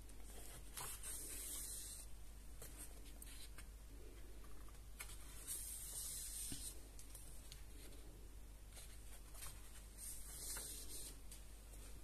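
Paper pages of a coloring book being turned, three soft swishes about four seconds apart, with small rustles and taps of hands brushing the paper in between.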